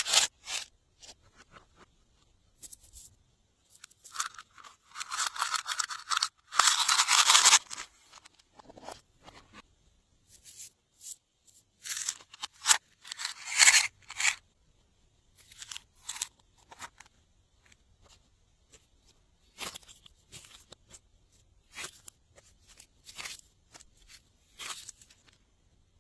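Glossy slime being squished and worked by hand, making crackling, crunching noises in short bursts with quiet gaps between them, plus a longer, louder stretch of crackling about four to eight seconds in.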